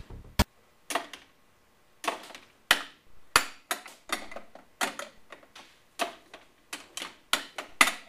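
Ceramic mug clinking against a coffee maker's glass carafe again and again: sharp, irregular clinks, a few a second, starting about a second in.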